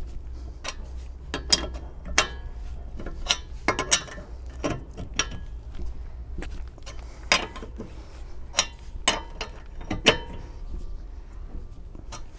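Steel lug wrench clinking and scraping on the lug nuts as a spare tire's lug nuts are tightened in turn: irregular sharp metallic clicks, some ringing briefly, over a low steady hum.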